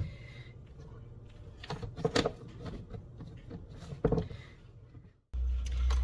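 A few light clicks and knocks as a plastic personal-blender cup is handled, its blade lid screwed on and the cup turned over. Near the end the sound cuts abruptly to a loud, steady low rumble.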